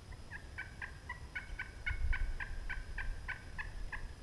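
Wild turkey yelping: a steady run of about a dozen short, evenly spaced yelps, roughly four a second.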